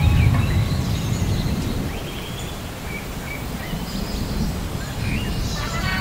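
Light rain hissing steadily, with small birds chirping at intervals. A low muffled rumble dies away over the first two seconds.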